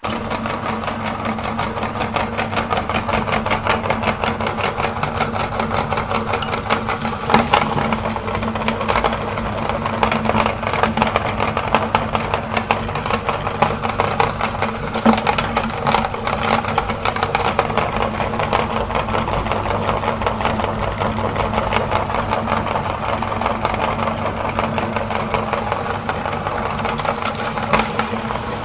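Electric meat grinder switched on and running steadily, its motor humming with a fast rattle, with a few louder cracks as the mini ice cream cones go through it.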